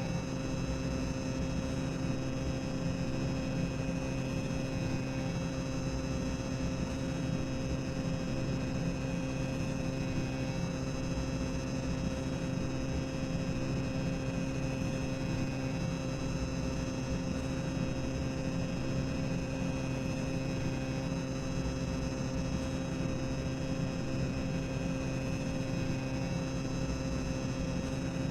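Boiler-room ambience of the Tower of Terror attraction: a steady low machinery rumble and hum with several constant tones held over it, unchanging throughout.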